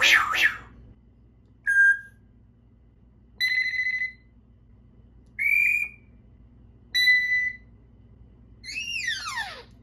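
African grey parrot mimicking household sounds: a short rasp, then four separate beep-like tones a second or two apart, then a falling whistle near the end.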